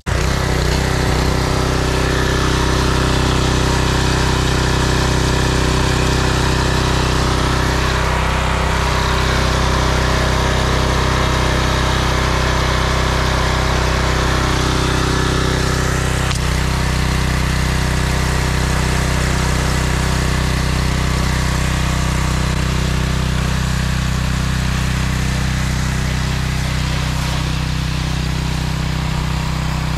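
Simpson 3100 PSI gas pressure washer with a Kohler engine, running steadily, with the hiss of the high-pressure water jet spraying a car.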